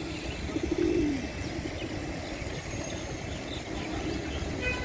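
A flock of feral pigeons cooing, loudest about a second in, over a steady low rumble of the surroundings.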